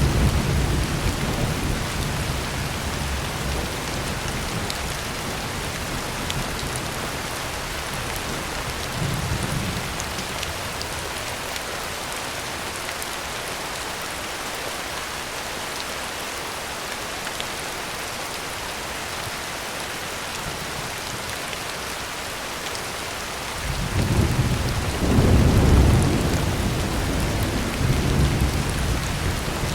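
Heavy rain on a tin roof, a steady dense hiss. Thunder rumbles: one dies away at the start, a short one comes about a third of the way in, and a louder rolling peal begins near the end.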